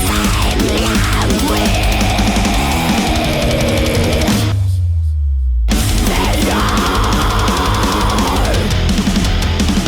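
Heavy metal song with distorted guitars and drums playing loud and dense. About halfway through, everything cuts away to a single low bass note for about a second, then the full band crashes back in.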